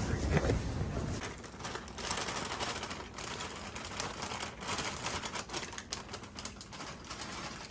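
Dry cereal squares poured from a plastic bag into glasses of milk: a quick, irregular patter of small clicks as the pieces tumble out, with the bag rustling.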